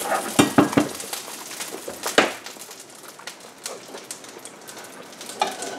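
Metal fork clinking against a ceramic bowl of scrambled eggs: three quick clinks near the start and a sharper one about two seconds in.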